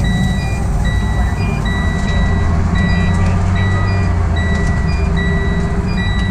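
Spartan Metro Star fire engine's diesel engine running steadily as the truck creeps forward, with a steady electronic beeping repeating about every 0.8 seconds.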